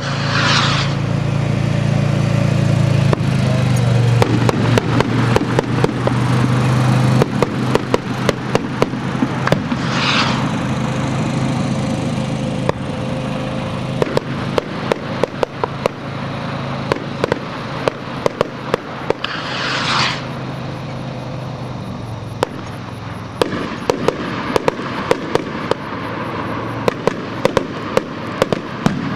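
Hand-made skyrockets going off: many sharp bangs and cracks of bursting rockets and salutes, with three rushing sounds about ten seconds apart. A steady low drone runs underneath and fades out a few seconds before the end.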